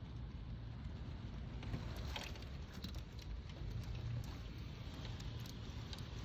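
Steady low rush of a hailstorm with rain, with scattered light ticks of hailstones striking, a small cluster of them about two seconds in and more near the end.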